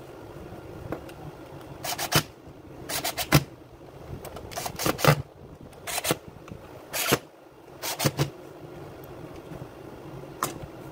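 Hard plastic chainsaw housing knocking and clicking as it is handled and set against other parts: a dozen or so sharp clacks, some in quick pairs or triples.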